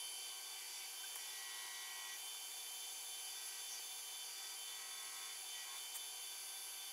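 Wood lathe running steadily with a faint motor whine, while a cloth rubs sanding paste against the spinning wooden bowl.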